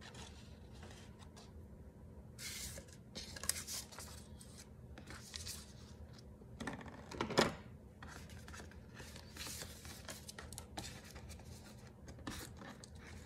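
Faint rustling and scraping of paper and a picture frame being handled, in scattered short bursts, with one louder handling noise about seven seconds in.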